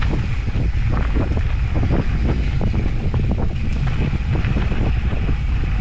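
Wind buffeting the microphone, heard as a steady low rumble, over the rattle and knocks of a Sport-On Explorer off-road handcycle rolling over a dirt trail.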